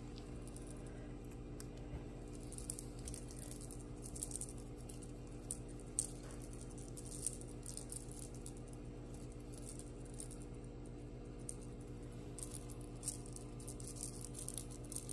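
Kittens moving about and playing, making scattered light clicks, taps and rattles at irregular intervals over a steady low hum.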